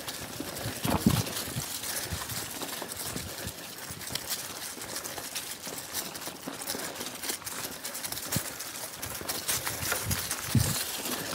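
Mountain bike tyres rolling over dry fallen leaves on a dirt singletrack, a steady crackling and clicking. Two heavier thumps come about a second in and near the end.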